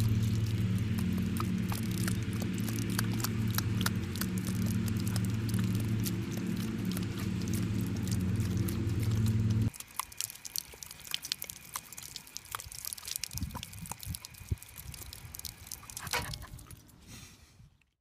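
Jet of water splashing with many sharp clicks and patters as a yellow Labrador retriever snaps and chomps at it. A steady low motor hum runs under it and cuts off abruptly about ten seconds in.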